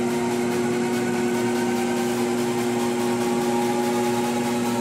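Sherline 4400 lathe's motor and spindle running with no cut, a steady hum with a fainter whine that rises slowly in pitch as the speed is turned up from about 800 to about 1000 rpm.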